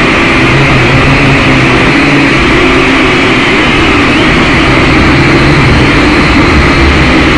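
Syma X5C quadcopter's brushed motors and propellers running steadily in flight, heard loud and close through the drone's own camera microphone as a dense whirring hum.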